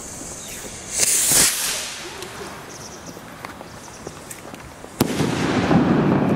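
Firework rocket fired as a salvo: a hissing launch about a second in, then a sharp bang about five seconds in followed by a long rumble.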